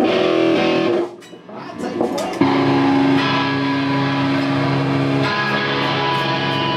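Live band's electric guitars sounding held, ringing chords. The sound drops away about a second in, then a loud sustained chord comes in at about two and a half seconds and keeps ringing.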